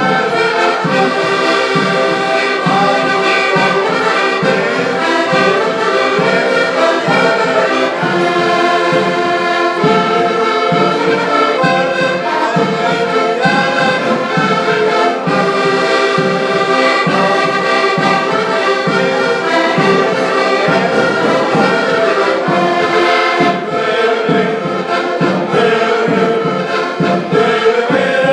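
Choral music: a choir singing held chords in harmony, continuously, possibly with instruments underneath.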